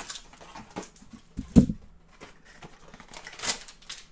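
Trading cards being handled and set down on a padded table mat, with soft clicks and rustles and a dull thump about one and a half seconds in; a brighter rustle of cardboard and cards comes a little before the end.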